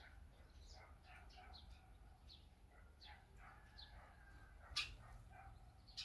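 Eurasian tree sparrows giving short, scattered chirps at a seed feeder. One sharp click stands out about five seconds in.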